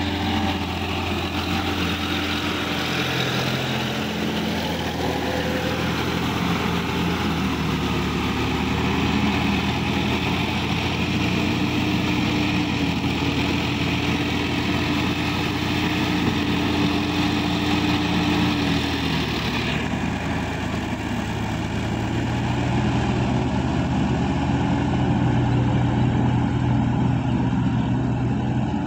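Sonalika tractor's diesel engine running steadily under load as it drives a rear rotavator through a flooded paddy field, with churning mud and water.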